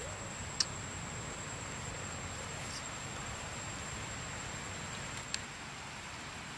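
Outdoor ambience of insects droning steadily with a thin high whine over a low hiss, broken by two short sharp clicks, about half a second in and again about five seconds in.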